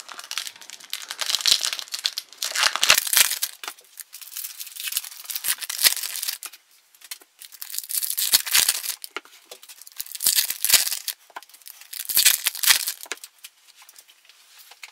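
Foil wrappers of Topps Series 1 baseball card packs crinkling and tearing as packs are ripped open and the cards handled, in repeated bursts with short pauses between them.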